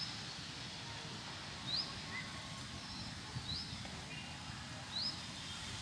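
A bird calling: a short rising chirp, three times about a second and a half apart, over a steady low background hiss.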